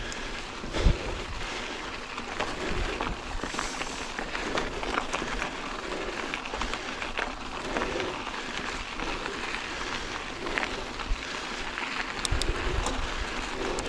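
Yeti SB150 mountain bike rolling along a dirt trail: a steady crunch of tyres over gravelly dirt, with many small clicks and rattles from the bike. There is a low thump about a second in.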